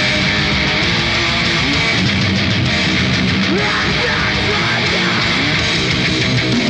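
Heavy metal band playing live, loud and continuous: distorted electric guitar over bass guitar and drums.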